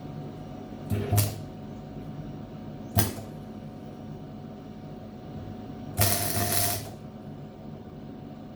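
Gasless flux-core MIG welder striking its arc in short bursts on steel sheet: a brief crackle about a second in, a sharp crack about two seconds later, and a longer crackling burst of just under a second near the six-second mark, over a steady low hum. The stop-start triggering is a plug weld being laid into a hole in the panel.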